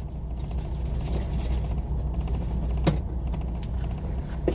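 Truck engine idling steadily as a low hum, heard from inside the cab, with two light clicks about three seconds in and near the end.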